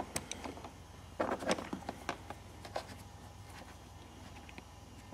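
Faint clicks and rustling of multimeter probe leads being handled and wedged onto the scooter battery's terminals, with a busier patch of handling noise about a second in, over a steady low hum.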